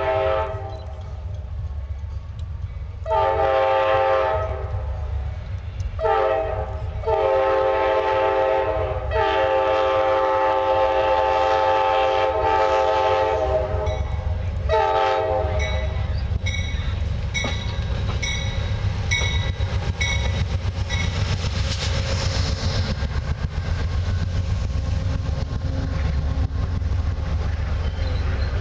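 Amtrak Genesis diesel locomotive sounding its multi-chime air horn in a series of blasts through the first fifteen seconds or so, the longest held about seven seconds, as it nears a grade crossing. Then the passenger train rumbles past with wheels clacking on the rails while a bell dings for several seconds.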